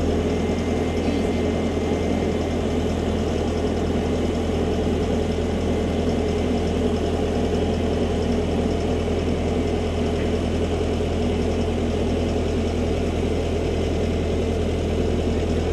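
Bobcat compact track loader's diesel engine running steadily with a low drone, held at constant speed while the machine takes up a chain to pull up the dump truck's bed.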